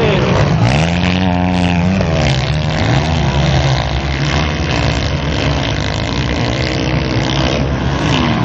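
Motocross bikes racing past, their engines revving hard with pitch sweeping up and down as the riders accelerate and back off around the track.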